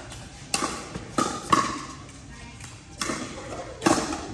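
A pickleball rally: paddles striking the hollow plastic ball, giving several sharp pops at an uneven pace, some with a short ringing tone, mixed with the ball bouncing on the court.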